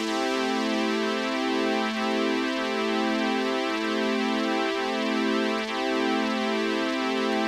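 Electronic background music: a synthesizer plays a repeating pattern of held notes, without drums or bass.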